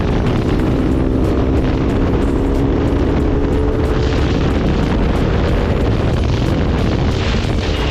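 Motorcycle engine running at a steady speed under heavy wind rumble on the microphone, as when riding.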